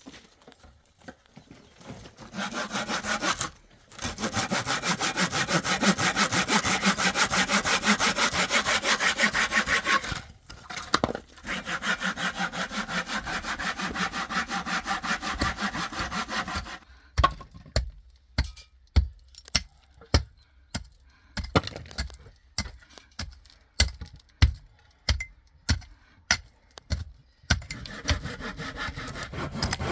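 Sawing with quick, regular back-and-forth strokes, stopping briefly twice. About halfway through it gives way to a series of sharp, separate knocks, one or two a second, and the sawing strokes start again near the end.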